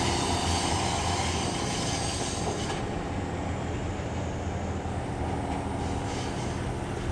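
GV-E400 diesel-electric railcar moving away over the rails, its diesel engine running with a steady hum and wheel noise on the track. The high-pitched wheel sound falls away about three seconds in and the whole sound slowly fades as the train recedes.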